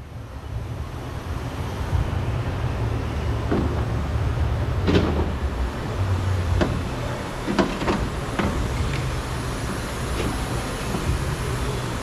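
Black plastic door module of a pickup door being worked loose and pulled out by hand: scattered sharp plastic knocks and clicks, several close together in the middle, over a steady low shop hum.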